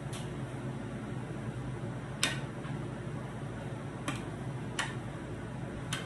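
A metal spoon clicks sharply against a bowl and a glass baking dish four times while food is scooped and mixed, the loudest click about two seconds in. A steady low hum runs underneath.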